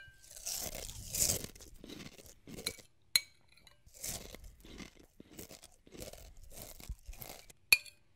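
Mouthful of crunchy cereal being chewed, a crunch about every half second to a second. A few sharp clinks of a spoon against the cereal bowl come about three seconds in and again near the end.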